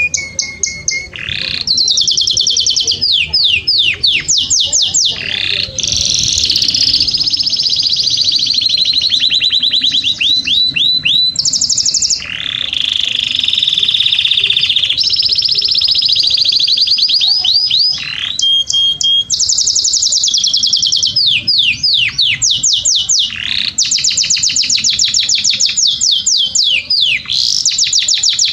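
Domestic canary singing a long, unbroken song of high rolling trills and fast runs of repeated notes, each run changing to a new phrase every second or two.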